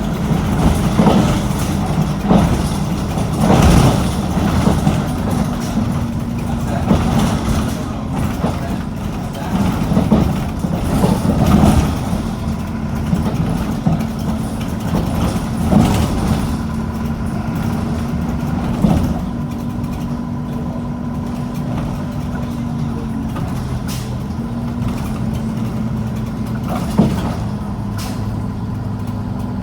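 A bus's diesel engine running steadily under load, with a low held drone that shifts slightly in pitch, and frequent short knocks and rattles over it.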